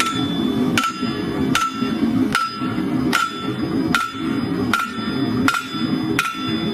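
Farrier's hammer striking the anvil in a slow, steady rhythm, about one blow every 0.8 seconds, each blow leaving a clear bell-like ring from the anvil.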